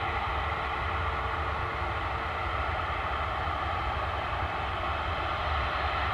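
easyJet Airbus airliner's jet engines running steadily at taxi power as it back-tracks along the runway: an even whine-laden hum over a low rumble.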